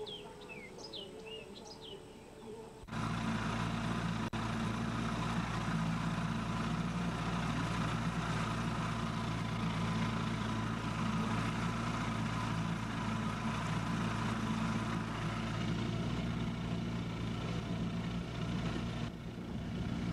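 Birds chirping for the first three seconds or so, then an engine comes in abruptly and runs steadily at an even pitch, loud, until it cuts off right at the end.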